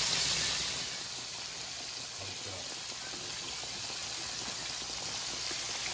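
Pork chops frying in hot oil: a steady sizzle, a little louder in the first second, then settling.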